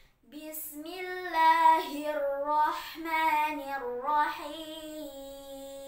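A girl's voice chanting Quran recitation in the melodic tartil style, with long held notes that step and slide between pitches. The phrase begins about a third of a second in and is loudest around the middle.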